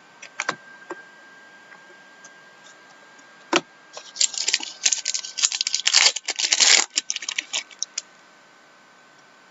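Trading-card pack and cards being handled: a few light clicks, then about four seconds of dense crinkling and rustling from the wrapper and cards, which stops abruptly.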